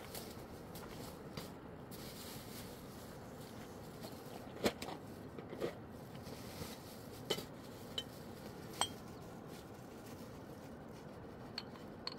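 Irregular sharp clinks and knocks of hard objects being handled over a steady faint background hiss. The loudest is a little before the middle, and a few of the clinks ring briefly.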